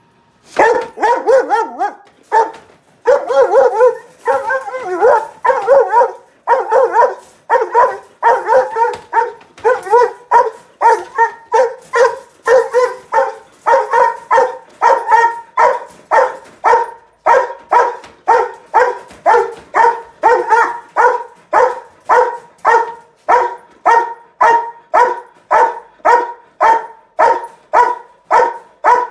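A dog shut in a wire crate barking on and on. For the first few seconds the calls are longer and wavering, then they settle into short barks at a steady rhythm of about one and a half a second.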